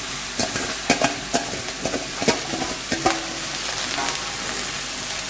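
Wet ponnanganni greens sizzling in hot oil in a stainless steel pan on a gas stove, the water left on the washed leaves hissing as it fries. Through the first three seconds there is a run of sharp clicks and knocks as more leaves are dropped in and handled in the pan.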